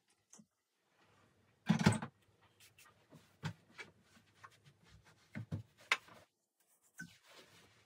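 Clunks and knocks of a cast-iron wood-burning stove being handled during cleaning, the loudest clunk about two seconds in as its door is shut, then several lighter knocks and taps.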